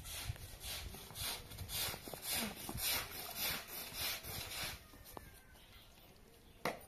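Plastic-bristled push broom scrubbing a wet rug in repeated swishing strokes, about two a second, stopping about five seconds in. A single short sharp knock near the end.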